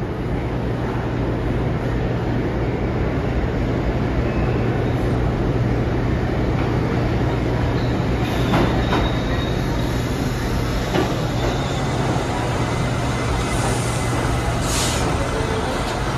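R68 subway train rolling into an underground station and braking to a stop, a steady loud rumble of wheels on rail. A few sharp clacks come around the middle, and a short high hiss near the end.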